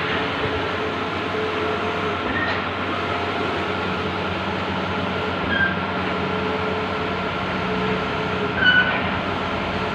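Large-format outdoor banner printer running: a steady mechanical whir and hum, with a few brief high chirps.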